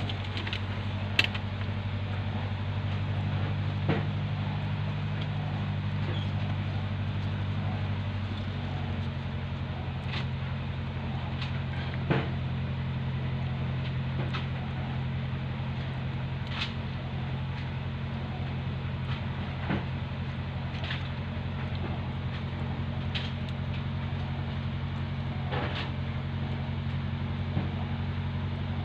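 A steady low motor hum that shifts slightly in pitch about eight seconds in, with scattered faint clicks and ticks over it.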